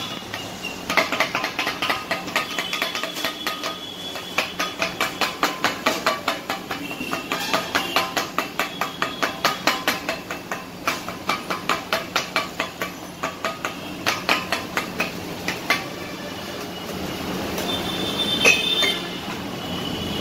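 Kothu parotta being chopped with two steel spatulas on a flat iron griddle: a fast, rhythmic metallic clanging of about four strikes a second that stops shortly before the end, followed by one louder clang.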